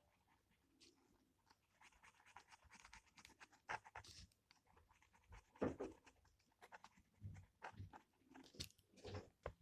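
Faint, irregular scratching and light clicks of gel pens on paper and being handled, with one louder knock a little over halfway through.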